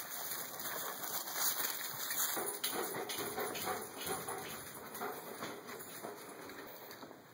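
A dog and people on the move: irregular footsteps, rustling and small clicks, with the dog's sounds among them.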